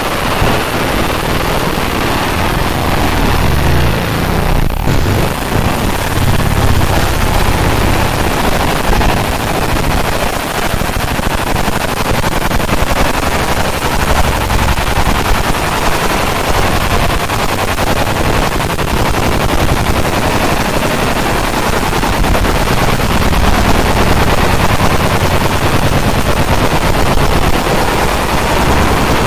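50 W JPT fiber laser engraver ablating a metal dog tag, a steady rapid crackling buzz as the beam repeatedly passes over the tag, over the steady noise of a fume-extraction fan.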